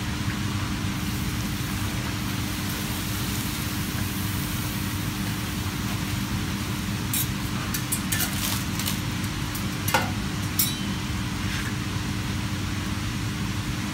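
Papadums frying in hot oil in a wok, a light sizzle over a steady low machine hum. A run of light clicks from metal slotted spatulas against the pan and the papadum stack comes about halfway through, with one sharper knock about ten seconds in.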